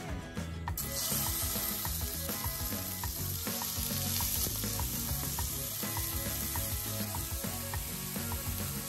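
Diced raw chicken breast frying in hot vegetable oil in a nonstick frying pan: a steady sizzle that starts suddenly about a second in as the pieces hit the oil.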